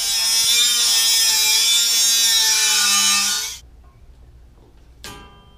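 Angle grinder cutting steel for a motor carriage: a loud, high whine with the abrasive hiss of the wheel in the metal, lasting about three and a half seconds before it cuts off.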